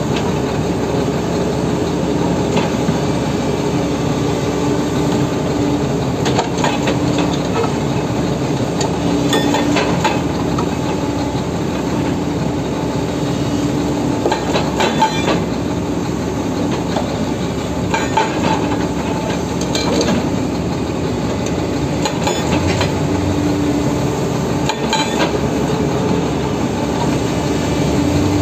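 Excavator running with its hydraulic breaker hammering rock: a loud, steady pounding over the engine, with sharper knocks every few seconds.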